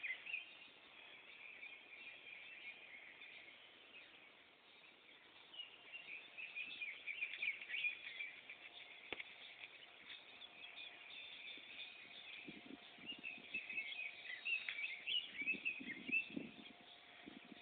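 Small birds chirping on and off, with a faint steady hum starting about halfway through and a single click at about the same point.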